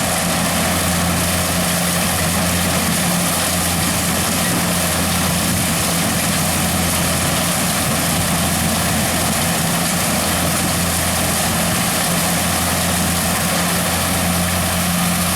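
Corn combine harvester with built-in sheller running: a steady, loud engine drone with a low hum under a dense machinery rush, unchanging throughout.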